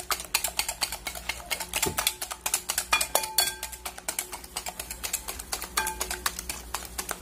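Hand whisk beating eggs and sugar in a glass bowl: fast clicking strokes against the glass, several a second, with faint ringing from the bowl now and then.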